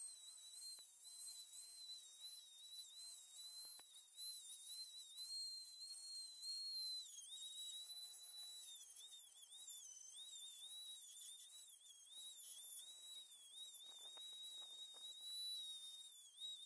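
Faint high-pitched whine of an electric rotary tool running, its pitch wavering and dipping from time to time as it is worked around the edges of square steel tubing to deburr them.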